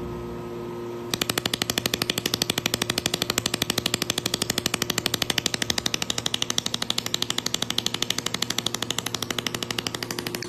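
Pulsed laser welder firing along a weld line: a rapid, evenly spaced train of sharp snaps that starts about a second in, over the machine's steady hum.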